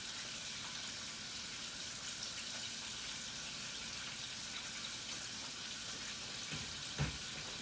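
Battered chicken wings frying in a deep fryer: a steady hiss of hot oil sizzling. A single low thump about seven seconds in.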